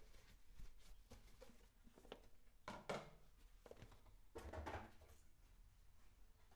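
Dishes being handled while drying: faint scattered clinks and taps, with two louder brief handling noises about three and four and a half seconds in, the second with a soft thud.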